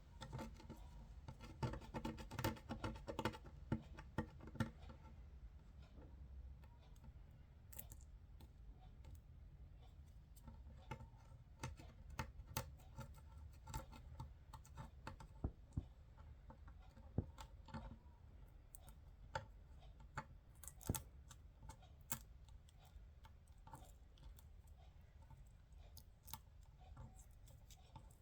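Faint, irregular soft clicks and taps. They come thick and fast for the first few seconds, then thin out to scattered single clicks.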